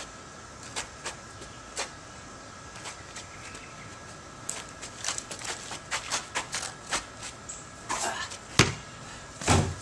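Footsteps scuffing and tapping on a concrete driveway as a man shifts to keep an umbrella balanced on his chin: a few scattered taps at first, then a busy run of quick steps from about halfway. Near the end, a sharp knock and then two heavier low thumps as the umbrella is grabbed, over a faint steady high hum.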